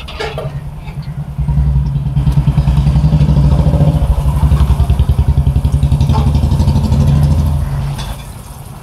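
Motorcycle engine running close by, a low, fast, even pulsing that grows loud about a second and a half in and dies away near the end.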